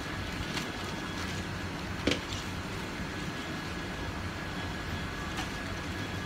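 Steady hum and background noise of a busy wet market, with faint steady machine tones, broken by one sharp knock or clatter about two seconds in and a few fainter ticks.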